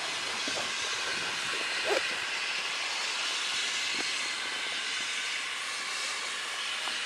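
Steady hiss of steam escaping from a GWR 14xx 0-4-2T tank locomotive, No. 1450, with a brief louder sound about two seconds in.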